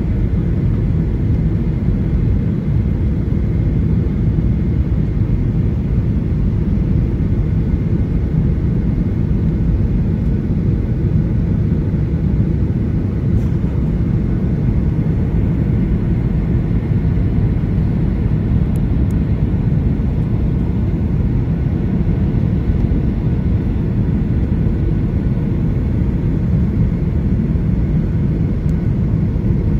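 Boeing 737-800 cabin noise on approach with flaps extended: the steady low rumble of the engines and airflow around the fuselage, with a faint steady whine above it.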